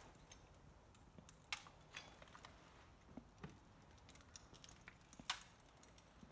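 Near silence with a few scattered faint clicks and ticks, the sharpest about five seconds in.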